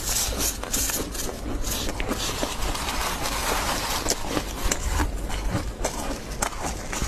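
Powdery freezer frost crunching and crackling as it is scraped up with a plastic scoop and squeezed in a gloved hand, a dense crunch in the middle giving way to many small crisp clicks.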